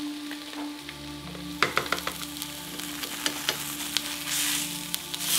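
Fish fillets sizzling in a frying pan, with sharp clicks and knocks of utensils on the pan and dishes; the sizzle swells louder near the end.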